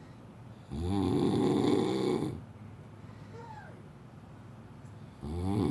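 A man snoring loudly in his sleep: two long snores about four and a half seconds apart, each lasting about a second and a half, with quieter breathing between.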